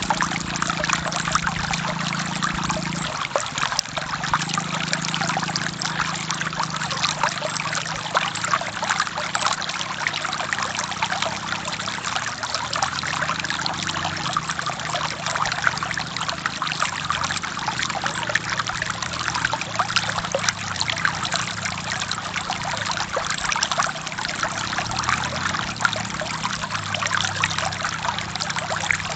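Forest stream flowing and splashing over rocks in a steady, even rush of water.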